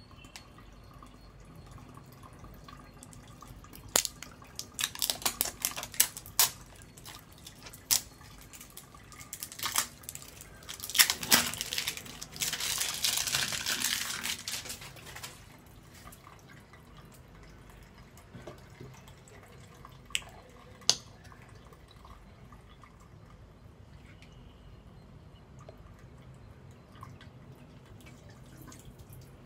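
Water dripping and splashing on wet floor tiles: scattered sharp drips and splashes, with a few seconds of steadier splashing about halfway through.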